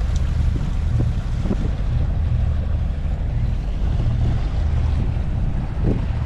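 Sailing yacht's inboard diesel engine running steadily as the boat motors along, with wind on the microphone and water rushing past the hull.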